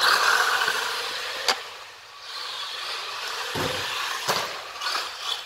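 Electric 390 motor and gearbox of a 1:12 HBX Transit RC crawler whirring as it drives over rough ground, easing off about two seconds in and then picking up again, with a few sharp knocks.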